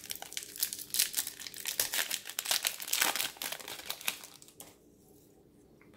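Foil trading-card pack wrapper crinkling and tearing as it is pulled open by hand, a dense crackle that stops about four and a half seconds in.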